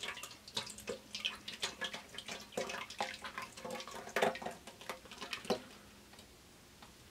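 Liquid egg whites glugging and splashing as they are poured from a carton into a stainless steel mixing bowl of eggs, in an irregular run of small splashes that stops after about five and a half seconds.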